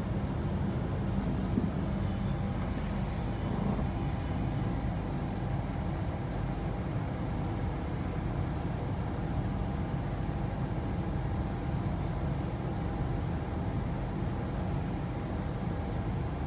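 Cabin noise of a Queensland Rail New Generation Rollingstock electric multiple-unit train running along the track: a steady low rumble with a faint steady whine above it.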